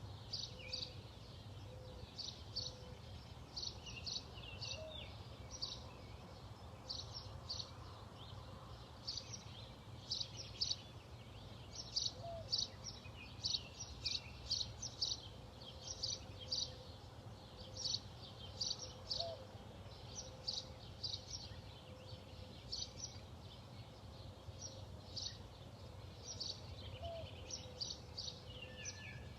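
Small birds chirping: short high chirps in quick groups of two to four, repeated steadily throughout, over a low steady hum.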